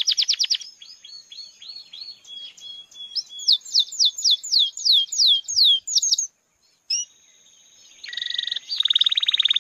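Belgian canary singing in fast runs of repeated, high, falling whistled notes. After a brief break, it switches to a rapid, lower buzzy trill near the end.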